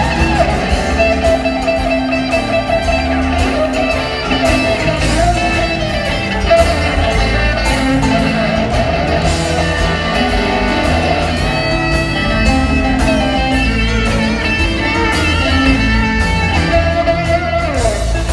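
A live blues band playing: electric guitars over bass and drums, with a lead guitar playing bending, wavering lines.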